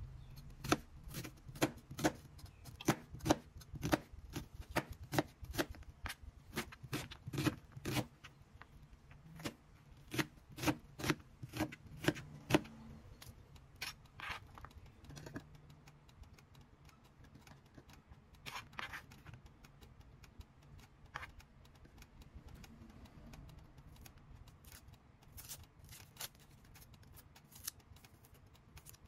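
Chef's knife chopping an onion on a plastic cutting board: sharp knocks of the blade hitting the board, several a second for about the first twelve seconds, then only a few scattered knocks and faint handling.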